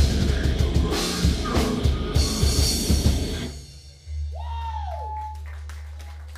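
Live metal band playing loud, fast drums and distorted guitars, stopping abruptly about three and a half seconds in. A steady low amplifier hum is left ringing, with a brief wavering high tone just after the stop.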